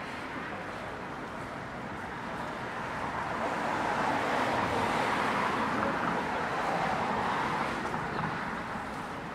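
Road traffic noise: a vehicle passing, the sound swelling about halfway through and then fading.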